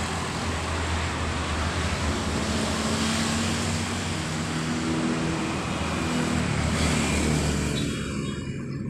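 Street traffic: cars running past on the road, a steady wash of engine and tyre noise that thins out near the end.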